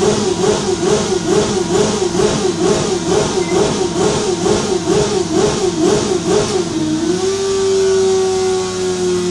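Suzuki GSR 600 inline-four, fitted with a de-baffled Devil exhaust and no catalyst, running at high revs on a dyno, its pitch wavering rapidly about three times a second. About seven seconds in the wavering stops and a steady high whine remains, slowly dropping in pitch.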